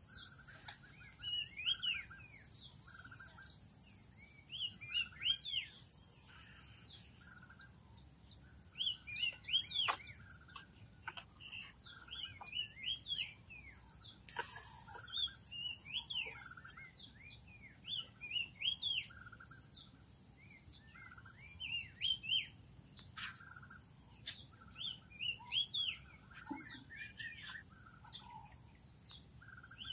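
Birds chirping over and over in short rising and falling calls, over a steady high-pitched insect buzz that swells louder twice. There are a few faint knocks.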